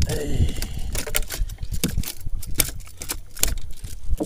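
Irregular knocks and taps on a wooden boat floor: a freshly landed hampala barb flapping against the planks.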